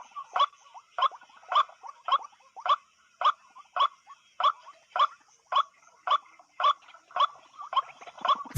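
Waterhen calling, one short downward-sliding note repeated steadily about twice a second.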